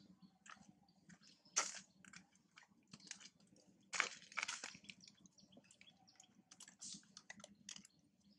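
Faint scattered clicks and crackles of a mother macaque and her newborn shifting and mouthing at the concrete ground, with two louder crunchy rustles about one and a half and four seconds in.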